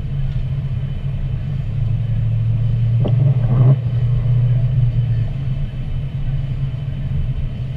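Car driving, a steady low engine and road rumble that swells for a few seconds in the middle, with one brief louder sound about three seconds in.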